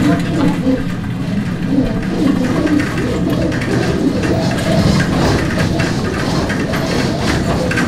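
Earthquake simulator running a strong-quake scenario: a loud, steady low rumble with rattling and scattered knocks.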